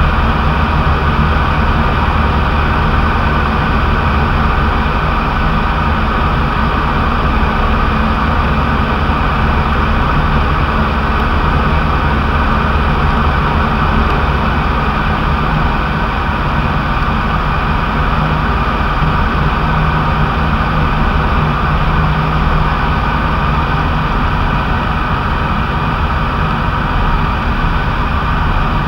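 Single-engine light aircraft's piston engine and propeller running steadily in flight, heard inside the cockpit as a constant loud drone with a rushing hiss.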